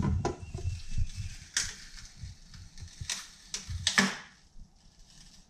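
Handling noise followed by several sharp taps of a small hammer working on a part inside a fibreglass jet ski hull, the loudest about four seconds in.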